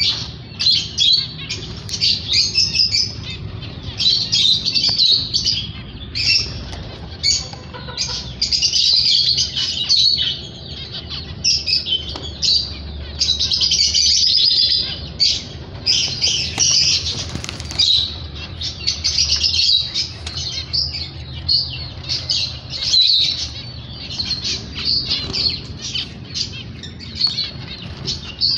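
Flock of caged zebra finches calling: many short, high-pitched chirps and beeps from several birds at once, overlapping in a continuous chatter.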